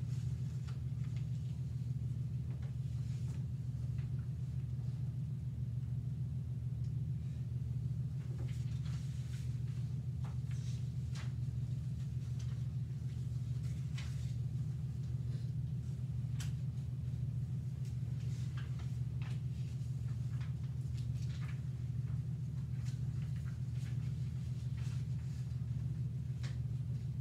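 Steady low room hum, with faint scattered clicks and rustles.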